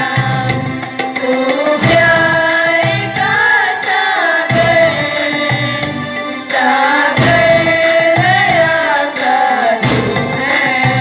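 Music: a song with a voice singing a wavering melody over instrumental accompaniment, with a steady percussive beat.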